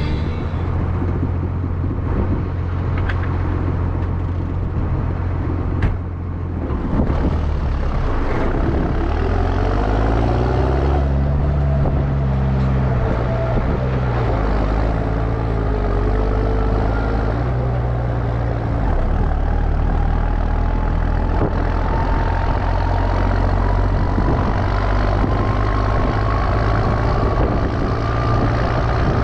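Mini excavator's diesel engine running under working load, its note dipping and recovering as the hydraulics take the strain, with a single knock about six seconds in. A faint whine rises slowly in pitch through the last third.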